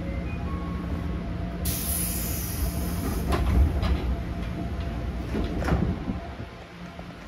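Pneumatic sliding door of a 205 series commuter train car closing: a sharp hiss of air starts about a second and a half in, then a few knocks as the door leaves shut, over the steady low hum of the standing train.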